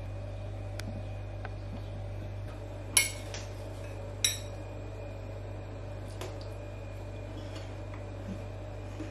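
A metal spoon clinking against a glass bowl twice, about a second apart, each strike ringing briefly, with a few lighter taps. A steady low hum runs underneath.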